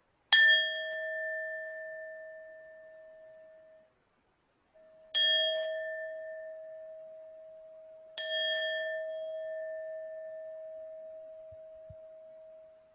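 Tibetan singing bowl struck three times, at the start, about five seconds in and about eight seconds in, each strike ringing at the same pitch and fading slowly.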